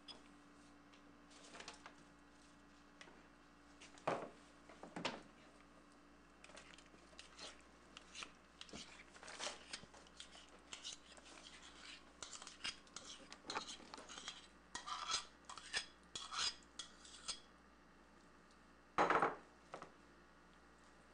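A metal spoon scraping and clinking against a metal mixing bowl and a ceramic plate in many short strokes, with one louder knock near the end.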